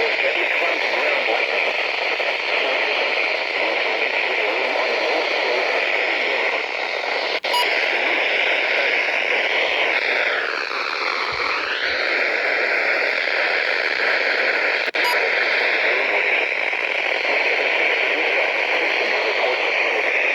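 Radio static: a steady hiss from a radio receiver picking up no clear signal. It cuts out briefly twice, and a faint whistle slides down and back up about halfway through.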